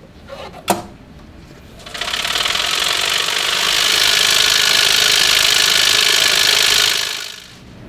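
Qiagen TissueLyser bead mill shaking two stacked sample-plate racks at high speed, a loud steady rattling buzz that starts about two seconds in and winds down near the end: it is grinding harvested wheat leaf tissue for DNA extraction. A single sharp click comes under a second in, before it starts.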